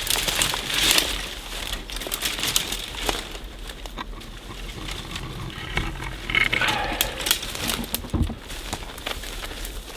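Close rustling and crinkling handling noise with scattered sharp clicks and crackles. A brief pitched sound comes about six and a half seconds in.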